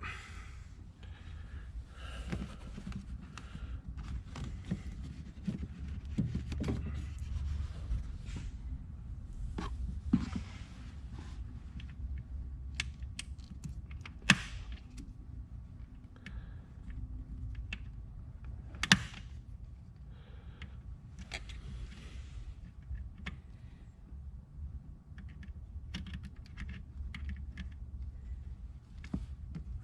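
Pliers and a spring hose clamp being worked along a rubber PCV hose in an engine bay: scattered small clicks, taps and rustling, with three sharper metallic clicks spread through.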